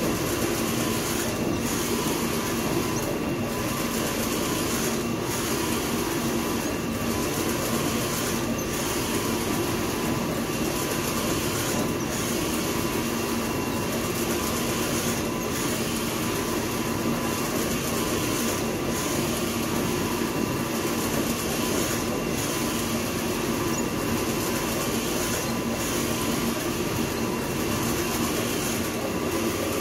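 Textile printing machinery running steadily: a constant mechanical hum and whir with a regular beat about every second and three quarters, as from a print carriage sweeping back and forth or a roller turning.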